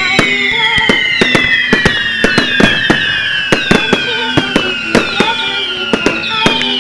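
Fireworks display: a rapid barrage of sharp bangs, several a second, with overlapping whistles that each fall in pitch, over faint music.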